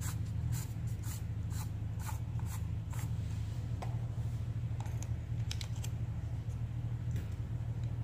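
Plastic chuck of a Drill Doctor sharpener clicking as it is twisted open by hand: sharp clicks about twice a second for the first three seconds, then a few scattered ones. A steady low hum runs underneath.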